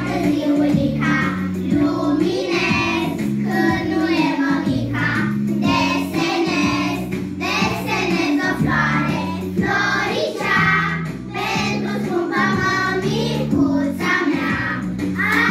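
A group of young children singing a song together over an instrumental backing track with steady bass notes.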